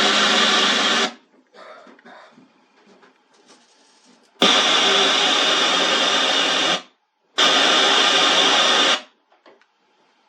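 FM radio on a small stereo amplifier board playing loud static hiss in three stretches that cut in and out abruptly, the first ending about a second in, the others starting about four and a half and seven and a half seconds in; the radio is picking up no clear station in a spot with poor reception.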